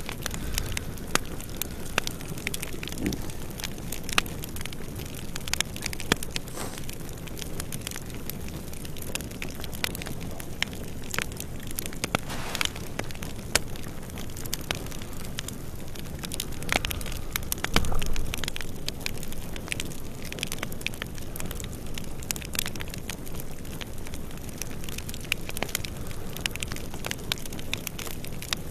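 Fire crackling: a continuous run of irregular sharp pops over a low rumble, with a louder low swell about eighteen seconds in.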